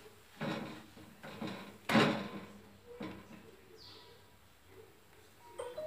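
Plastic spatula and non-stick frying pan clattering on a gas stove grate: a few short knocks, the loudest about two seconds in, then quieter.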